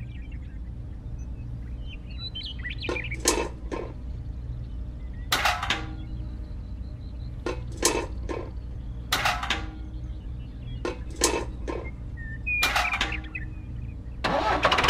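Small tin pails clinking as they are lifted and set down in a toy trailer bed: about a dozen light metallic knocks, some in quick pairs, over a steady low hum. A louder steady noise starts just before the end.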